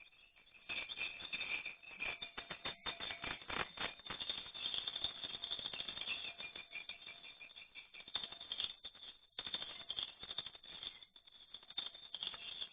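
Many swiftlets clicking rapidly, a dense rattling with higher chirps mixed in, the echolocation clicks they make flying in the dark of a swiftlet house, with some wing flutter. It swells about a second in and thins briefly a few times.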